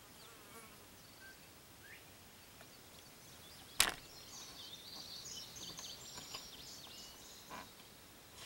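A single sharp knock about four seconds in as the camera is bumped, followed by a few seconds of quick, high-pitched chirping.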